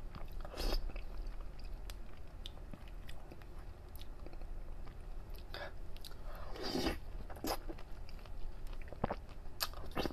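Close-up chewing of chilled pineapple fruit jelly, soft and wet, with a few louder mouth sounds, the longest about seven seconds in, and small sharp clicks near the end.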